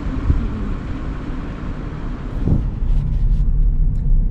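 Car moving along a road, heard from inside the cabin: a steady low rumble of engine and tyres. About halfway through, the hiss of the road noise thins out and a lower hum remains.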